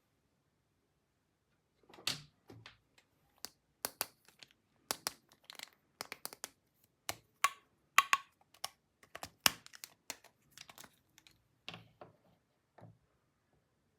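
Small hard plastic toy parts being handled, an irregular string of sharp clicks and clacks that starts about two seconds in and stops about a second before the end.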